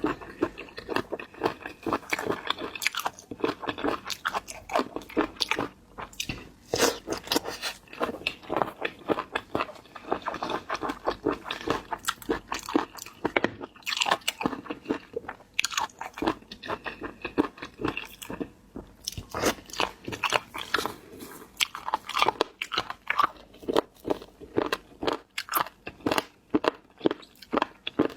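Close-miked eating of seafood: a dense, irregular run of crunchy bites and chewing, with many sharp crackles.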